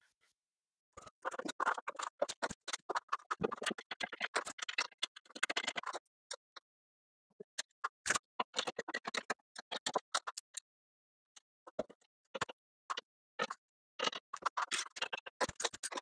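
Small metal parts being handled: irregular clicks, clinks and scrapes of bolts, nuts and brackets against each other and against the aluminium roof rack, thick in the first few seconds, sparse in the middle and thick again near the end.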